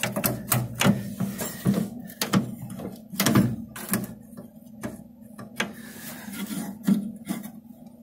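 Irregular metal clicks and knocks from hands working the rusty door-lock rods and latch inside a 1956 Chevrolet door. The lock mechanism is seized and does not free up.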